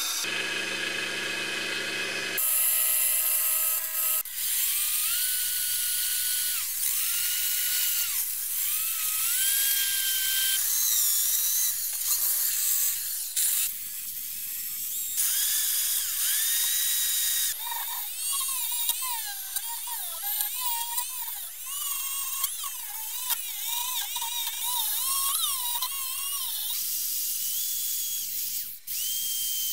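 Brass wire wheels spinning in power tools, a pillar drill and then a handheld rotary tool, scrubbing rust off cast-iron vice parts. A high motor whine dips and climbs in pitch as the wheel is pressed on and eased off over a hissing scrub, with abrupt jumps where the footage is cut.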